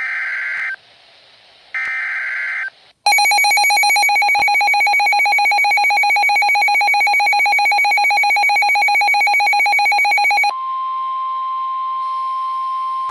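Emergency Alert System tones announcing a flood warning: two short warbling SAME data bursts, then about seven seconds of the harsh two-tone EAS attention signal, then a steady single-pitch 1050 Hz weather radio alert tone.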